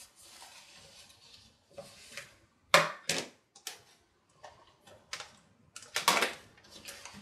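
Plant pots being handled and set down, a series of knocks and clatters, the loudest about three seconds in and again about six seconds in.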